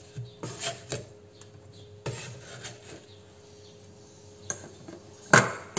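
Sliced squash being scraped and swept off a wooden chopping board with a cleaver into a dish, giving a few soft knocks and scrapes and one sharp clack of crockery or blade about five seconds in.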